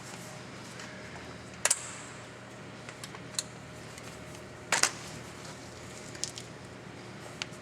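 A few sharp metallic clinks and knocks as hand tools and ball joint press adapter cups are handled and set against the steering knuckle. The loudest come about a second and a half in and just under five seconds in, with lighter taps between.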